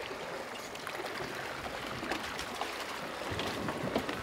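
Steady wash of sea water and wind around a small open fishing boat, with a few faint knocks as a yellowfin tuna is hauled over the gunwale onto the deck.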